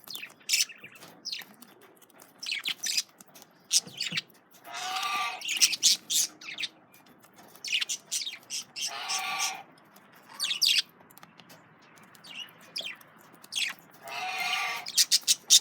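Male budgerigars chirping and chattering in short calls, with three longer harsh calls about five, nine and fourteen seconds in.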